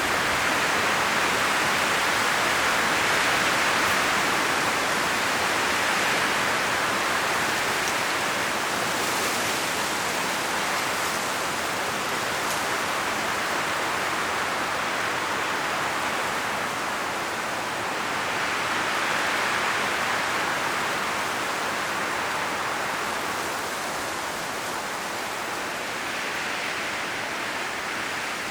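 Strong wind blowing through forest trees, the leaves rustling in a dense, steady hiss that swells and eases in slow gusts every several seconds.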